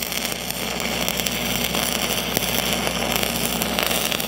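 Stick-welding arc crackling and hissing steadily as a 5/32-inch 7010 pipeliner rod lays the hot pass on a threadolet, with an engine running steadily underneath.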